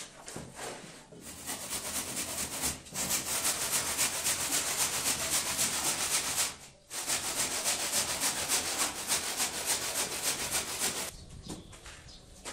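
Fast, even rubbing strokes, a dense scratchy rasp that breaks off briefly past the middle, resumes, and dies away near the end.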